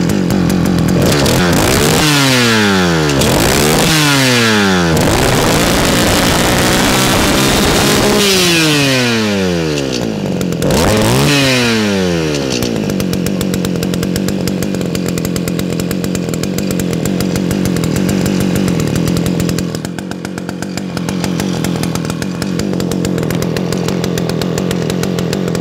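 ECHO YE46 brush cutter's two-stroke engine being revved with the throttle trigger: several quick blips in which the engine speed jumps up and then falls back, then it settles into a steady idle for the second half.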